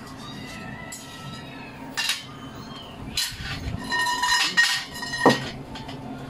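Hard objects clattering and clinking: a single sharp knock about two seconds in, then a busier run of clinks with a brief ringing tone, ending in one sharp knock a little past five seconds.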